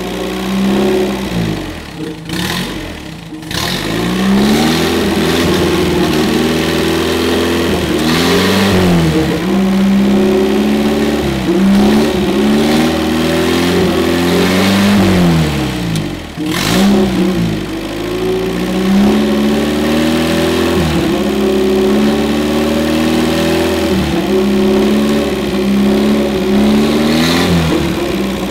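MG TC's XPAG four-cylinder engine, freshly rebuilt, running on a test stand. Its speed sags and picks back up about three times while the carburettor adjuster screws are turned with a wrench.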